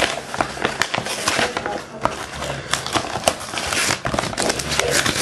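Crinkling, crackling packaging being pulled and worked at by hands struggling to open it, with many small sharp snaps.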